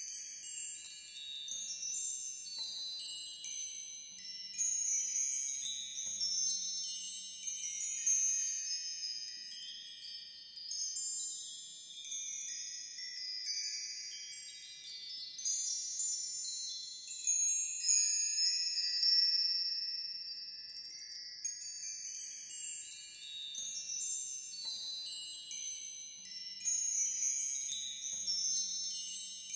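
Wind chimes tinkling: many high, bell-like notes struck at random, ringing out and overlapping.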